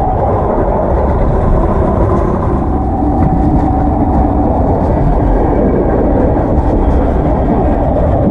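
Cable-hauled funicular car rolling along its rail track, a steady rumble.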